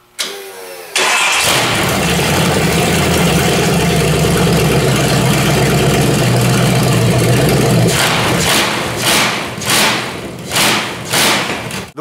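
A 5.9 Magnum 360 cubic inch fuel-injected V8 swapped into a riding lawn mower cranks briefly and fires up about a second in. It runs steadily for several seconds, then is blipped about five times near the end.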